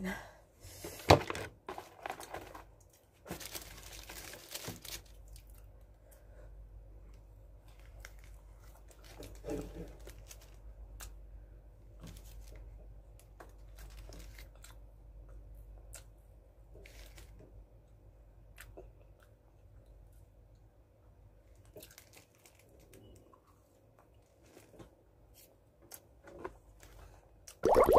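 Paper food wrappers and a small packet being handled, crinkled and torn on a tabletop, in short intermittent bursts with scattered light taps and clicks; mostly quiet between them.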